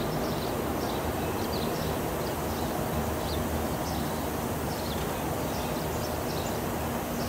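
Steady outdoor hiss of misting fans blowing, with faint, scattered high bird chirps.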